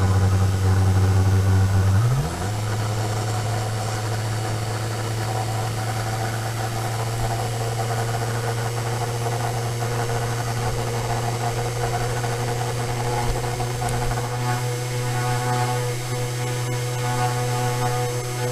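Sainsmart Genmitsu 4040 Pro CNC router's 52 mm spindle running with a steady hum while its bit cuts the first half-millimetre-deep spiral pass into a 25 mm American white oak dowel turning on the rotary axis. About two seconds in, the tone shifts up a little in pitch and the sound drops in level, then holds steady.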